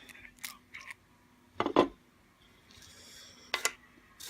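Metal clicks and clacks from an American Lock 1100 series padlock being handled and taken apart, with a louder clack just before two seconds in, a short scrape, then another sharp click.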